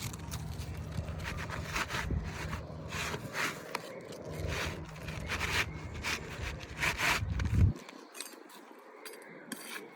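Irregular scraping and rubbing strokes of asphalt roofing shingles being worked and pried loose, over a low rumble that cuts off suddenly about three-quarters of the way through.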